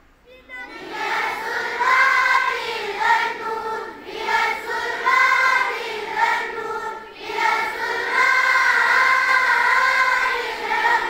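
A chorus of schoolchildren singing a Kashmiri prayer song (dua) in unison, in long phrases with short pauses for breath about four and seven seconds in.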